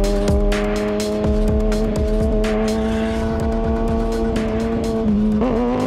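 Kawasaki ZX-6R inline-four engine running at steady revs with a constant pitch, then dipping briefly and climbing in pitch near the end as the throttle opens again. Background music plays underneath.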